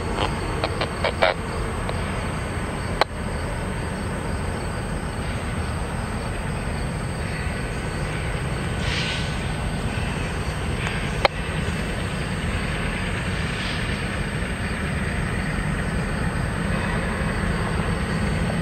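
Diesel locomotives of an approaching BNSF train rumbling steadily in the distance, with a few sharp clicks in the first second and one at about three seconds and another at about eleven seconds.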